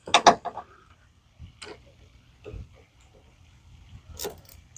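Scattered clicks and clinks of hand tools and battery-cable hardware being handled while the truck's battery cables are reconnected: a quick cluster of sharp clicks at the start, then a few single ones spaced out.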